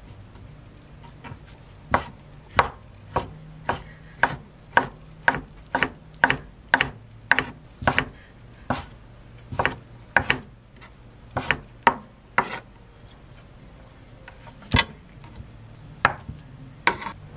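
Chef's knife chopping sliced ham on a wooden cutting board, a quick run of sharp knocks about two a second. After a pause, a few single knife strikes on the board as the knife goes into a block of tofu.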